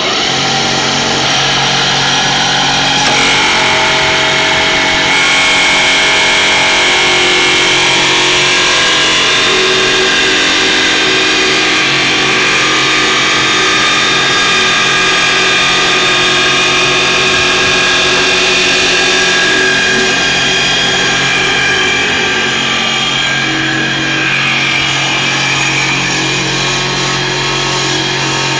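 CNC wood turning lathe running, its two cutters working a spinning wooden blank at the same time: a loud, steady machine hum with several held whining tones over a continuous cutting hiss.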